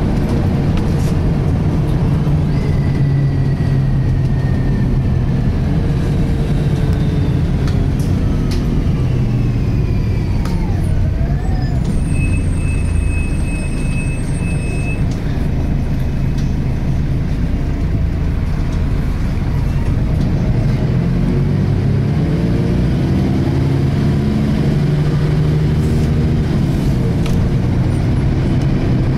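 Volvo B10BLE single-deck bus heard from inside the cabin on the move: engine and road rumble with a whine from the rear differential, which the uploader calls a strange diff sound. The whine falls in pitch over the first ten seconds or so, then rises again in the last third as road speed picks up.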